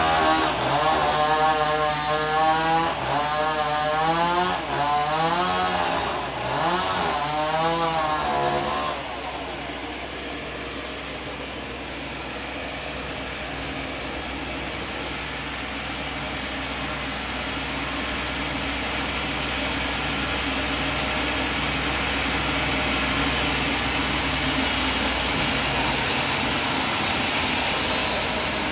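Sawmill saw running through timber. For about the first nine seconds its pitch wavers up and down under load, then it settles into a steadier run that slowly grows louder and higher toward the end.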